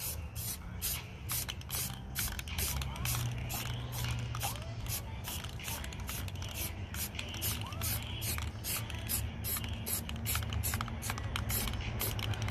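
Aerosol can of primer spraying in quick short bursts, about three hisses a second, as a second, heavier coat goes onto a sanded car body repair. A steady low rumble runs underneath.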